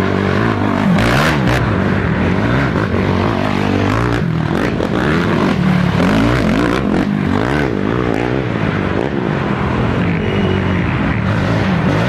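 Several racing ATV engines revving up and down together, their pitches rising and falling as the quads accelerate and shift.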